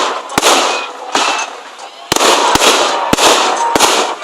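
Aerial fireworks bursting: a string of sharp bangs over a continuous crackling hiss. It thins out briefly about midway, then several bangs come close together.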